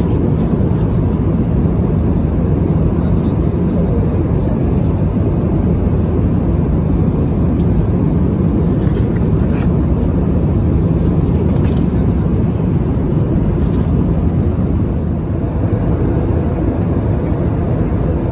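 Steady in-flight cabin noise of an Airbus A320-232: a loud, even drone of engines and rushing air, with a few faint light clicks.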